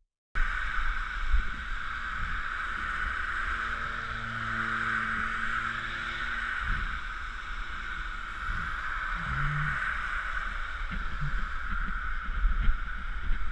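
Steady rushing noise with a low rumble from a GoPro riding on a mountain bike down a snowy slope: wind over the camera and the bike rolling through snow. It cuts in suddenly after a brief silence.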